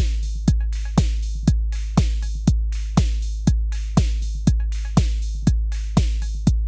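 Drum machine beat at about two beats a second: a deep kick with a long low boom on every beat, with lighter ticks between.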